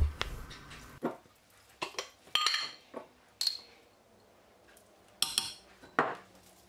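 Several short clinks and taps of glass spice jars and kitchenware against a stainless steel mixer bowl as spices are added, a few of them with a brief high ring.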